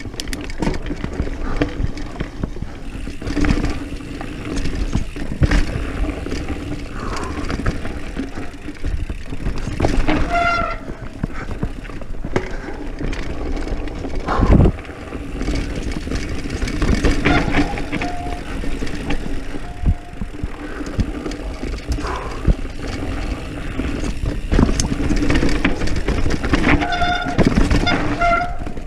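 Diamondback Mission 1 mountain bike descending a dirt trail at speed: a steady rattle of the frame, chain and suspension with frequent knocks as the tyres hit roots and bumps, over a low rumble of wind on the microphone. Short high squeals cut in twice, about ten seconds in and near the end, typical of disc brakes dragged on a descent.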